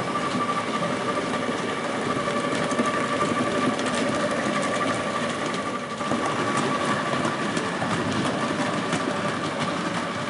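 7mm-scale model diesel locomotive running along the track with its coal wagons: a steady mechanical hum with a high whine held throughout, and faint light clicks.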